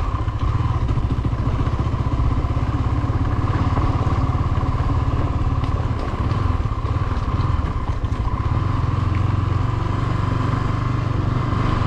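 Small-displacement motorcycle engine running steadily under way, heard from the rider's position, with a few faint ticks over it.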